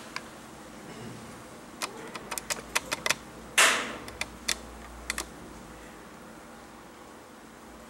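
Felt-tip marker drawing on a flip chart pad: a run of sharp taps and short strokes, with one louder scrape around the middle.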